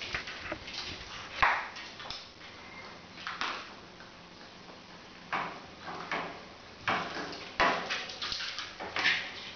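A kitten and a puppy scuffling on a tile floor: irregular bursts of paws and claws scrabbling on the tiles, with small clicks and knocks.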